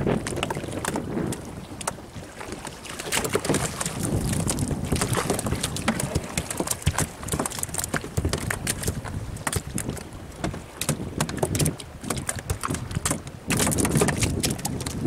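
Wind buffeting the microphone on a small open fishing boat at sea: a low, rushing noise with frequent small knocks and taps. It grows louder near the end.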